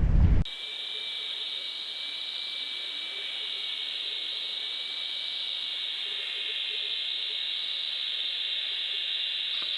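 Steady high hiss with a faint, slightly wavering whine, the self-noise of a sealed underwater fishing camera whose housing shuts out the wind. It starts with a sudden cut from wind noise about half a second in.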